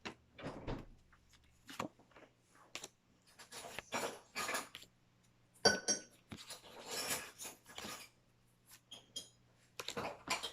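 Pokémon trading cards and their foil booster pack being handled: irregular rustles, slides and light taps, with one brief clink a little past halfway.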